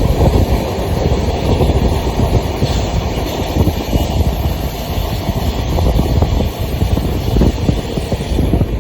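Indian Railways train running along the track: a steady, loud rumble of wheels on rails with a dense clatter over the track.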